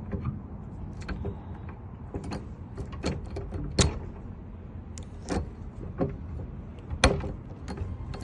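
A key working in a truck tool-compartment lock: scattered sharp metal clicks and knocks as it is pushed in and turned, the loudest a little under four seconds in and again about seven seconds in, over a steady low hum.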